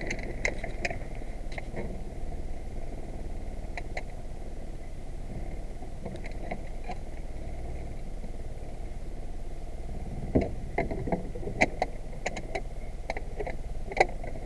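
Knocks and clatter of gear being handled on the floorboards of a small boat, scattered at first and then several in quick succession from about ten seconds in, over a steady low rumble.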